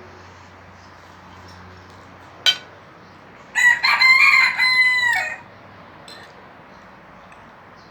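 A rooster crows once: one segmented crow of nearly two seconds, starting about midway through. It is preceded by a single sharp click.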